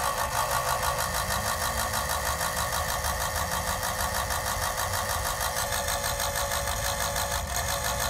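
AirDog II electric diesel lift pump running on direct 12-volt power: it switches on abruptly and runs with a steady, high, buzzing whir. It runs fine on straight 12 volts, which points to a bad relay as the cause of its failure to prime.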